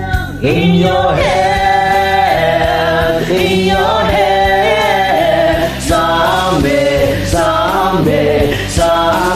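Layered sung vocals over a karaoke backing track, with held notes that bend and change about every second.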